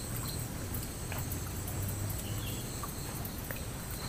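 Quiet outdoor ambience: a faint, steady, high insect trill over a low, even rumble.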